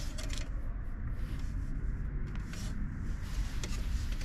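Faint rubbing and scratching handling noises, a few light scrapes, over a steady low hum.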